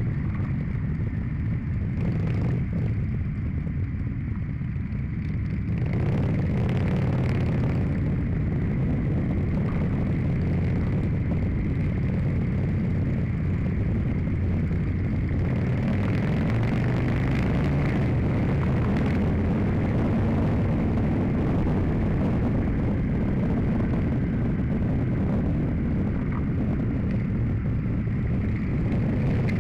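Motorcycle engine running under way, with wind rushing over the bike-mounted camera's microphone. The sound grows louder and fuller about six seconds in, then holds steady.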